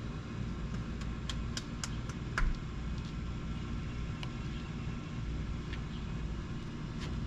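Steady low mechanical hum, with a handful of sharp clicks between about one and two and a half seconds in and another near four seconds.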